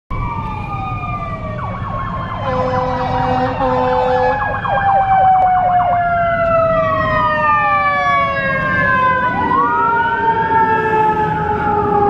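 Several emergency-vehicle sirens sounding at once, their overlapping tones sliding slowly down in pitch, one sweeping back up near the end. A run of quick stepped tones comes in the first few seconds, over a steady low road rumble.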